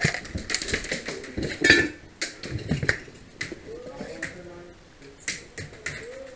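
Scattered airsoft gunfire: irregular sharp snapping shots, a dozen or so, the loudest a little under two seconds in.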